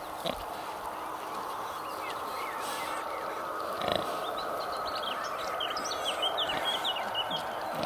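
Sow nursing her two-week-old piglets: a single low grunt about four seconds in, then many short high squeaks near the end, over a steady background hiss.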